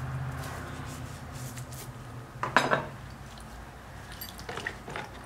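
Small metal hub parts clinking and knocking against a plastic tub as they are washed in gasoline. The loudest clink comes about two and a half seconds in, with lighter clicks near the end, over a low steady hum that fades out about three seconds in.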